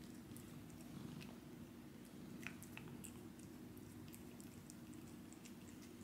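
A cat licking a frozen tuna popsicle: faint, small wet clicks scattered throughout, over a low steady hum.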